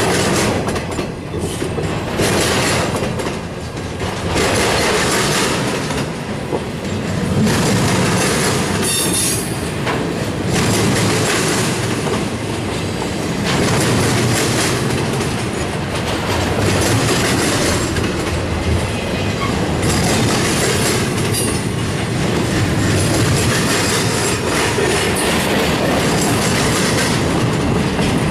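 Container-laden double-stack well cars of a Union Pacific intermodal freight train rolling past: a steady rumble of steel wheels with rhythmic clacking over rail joints. A brief squeal of wheels on rail comes about nine seconds in.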